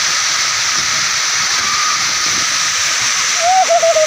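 Landslide debris and mud pouring down the hillside: a steady rushing hiss. A person's voice calls out briefly near the end.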